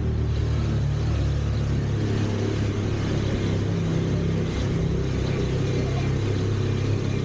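Tuk-tuk engine running steadily while under way, a low, even engine drone.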